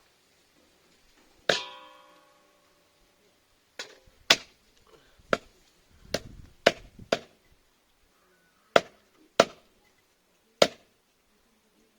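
Heavy chops, most likely a cleaver or big knife striking a cutting board, about ten irregular blows. The first blow, about a second and a half in, rings with a metallic tone that dies away. The rest come in a loose run between about four and eleven seconds in.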